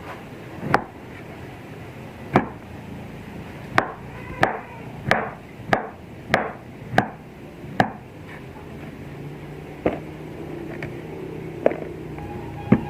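Knife chopping on a cutting board: single sharp strokes, coming about every two-thirds of a second through the middle, then sparser ones near the end.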